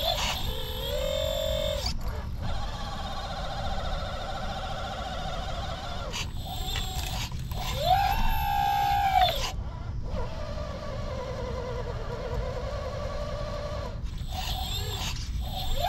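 Small electric motors of radio-controlled construction models whining. The pitch swells up and falls back three times, near the start, about halfway through and near the end, with a steadier whine between, over a steady low rumble.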